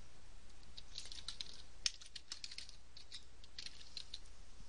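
Computer keyboard keys clicking as a short phrase is typed: a quick, uneven run of keystrokes starting about a second in, with one louder click near the middle.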